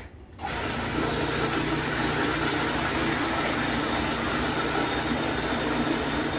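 Electric countertop food processor switched on and running at a steady speed, its motor humming as it blends a coconut cupcake batter of butter, sugar, buttermilk and eggs. The motor starts about half a second in.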